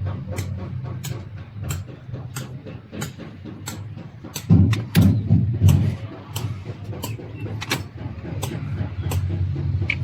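A steady low mechanical hum with a sharp, regular click about every two-thirds of a second. A louder low rumble comes in about four and a half seconds in and lasts a second or so.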